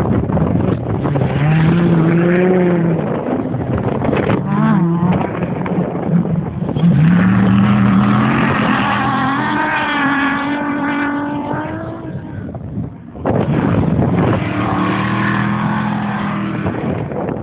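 Off-road race vehicles, a dune buggy and then a race truck, driving hard across sand dunes, their engines revving up and falling away as they pass, with wind noise on the microphone. The engine sound drops briefly about two-thirds of the way through, then a second vehicle's engine comes in.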